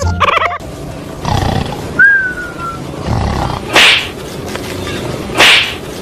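A dog growling and snarling under a cardboard box, with two loud harsh bursts about a second and a half apart.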